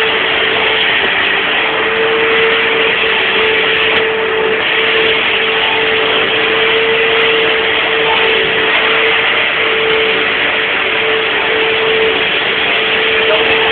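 Dyson vacuum cleaner running steadily: a constant motor whine over a loud rush of air.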